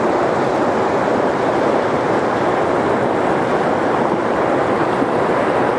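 Fast, swirling river current rushing past an inflatable boat: a steady, unbroken rush of water.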